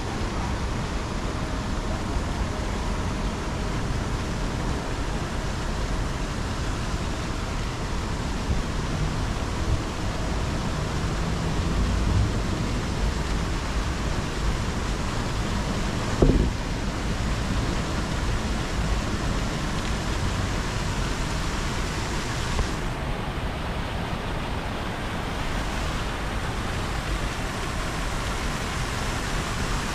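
Steady splashing of fountain jets falling into a shallow reflecting pool, an even rushing noise, with a low city rumble beneath. A brief sharp sound stands out about sixteen seconds in.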